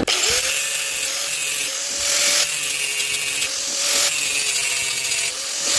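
Angle grinder running steadily while it grinds down the battered, burred teeth of a Minsk motorcycle's steel clutch basket to level them. The grinding hiss swells and fades several times as the disc is pressed onto the metal and eased off.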